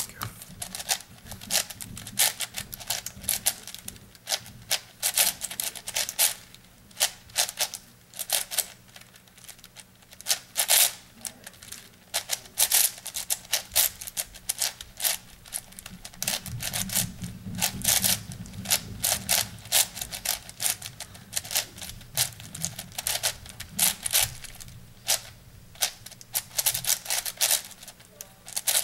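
8x8 puzzle cube being turned by hand: its plastic layers click and clack rapidly and irregularly, with short pauses between bursts of turns.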